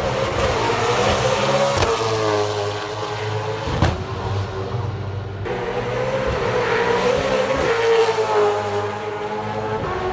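Race car engines running at high revs on the circuit, their pitch wavering up and down as the cars shift and change speed.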